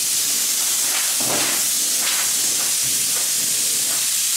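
Compressed-air blow gun giving a loud, steady hiss as it blows dust off a bare metal wing panel.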